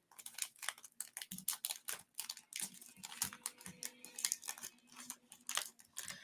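Trading cards being handled and slid into plastic card sleeves: soft, irregular clicks and plastic rustles, several a second.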